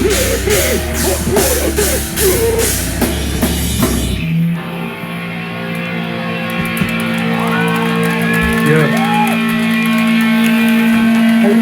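Live heavy rock band with distorted guitars, bass and a fast, steady drum beat, stopping abruptly about four seconds in. Guitar and amplifier tones then keep ringing, with a few sliding notes over them.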